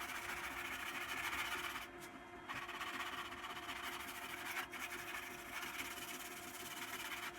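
Sanding the repaired composite surface of an RC glider, a steady scratchy hiss with a short break about two seconds in, stopping at the end. A faint steady hum runs underneath.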